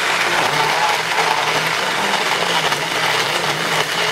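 Magic Bullet personal blender running steadily, blending a thick strawberry, ice and vanilla ice cream frappuccino mix; loud, with a low motor hum under the whirring.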